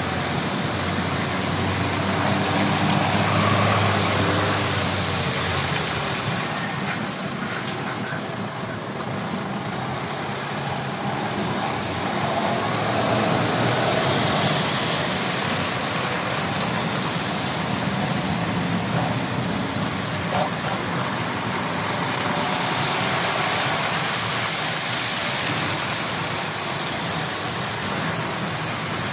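Articulated lorries driving past one after another, diesel engines running and tyre noise on the wet road, the sound swelling about three times as each one goes by.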